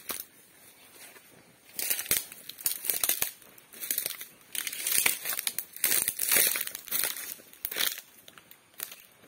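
Footsteps crunching and crackling through dry fallen oil palm fronds and leaf litter, in irregular bursts starting about two seconds in.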